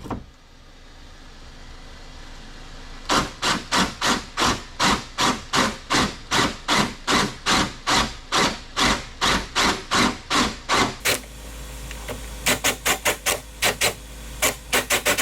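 Rhythmic scraping strokes of a hand tool cutting into a carbon fiber hood, about two to three a second, as a hole is worked through the panel's layers. After a pause the strokes come quicker and shorter near the end.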